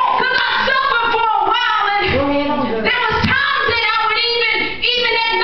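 A woman's voice amplified through a handheld microphone, delivered in a sung, drawn-out way with held, gliding notes rather than plain speech.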